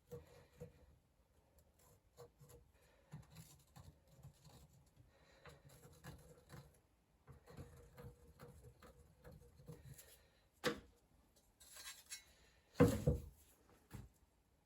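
Light scraping, rubbing and small clicks of metal being handled on a workbench as a hand mower's bottom blade is lined up against the original. There are a few knocks: a sharp one a little after ten seconds, the loudest thump about a second before the end, and a smaller knock just after it.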